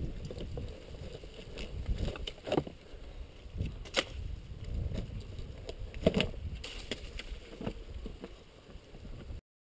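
Dirt bike engine running at low revs, heard muffled through a helmet camera's case as a low, uneven rumble, with several sharp knocks of the bike against rocks; the loudest come about four and six seconds in.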